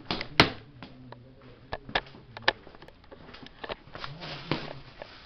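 Plastic trash bag crinkling and crackling as a cat plays with it: irregular sharp crinkles, the loudest about half a second in.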